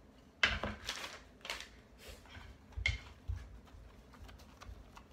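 Light knocks and clicks of wooden boards and small parts being handled and set down, a few sharp ones among quieter ticking.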